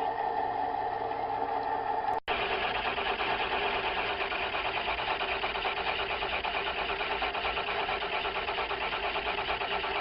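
Metal lathe running, machining steel bar stock, with a steady machine sound. An abrupt break about two seconds in gives way to a fuller, lower running sound with a fast, even rhythmic texture.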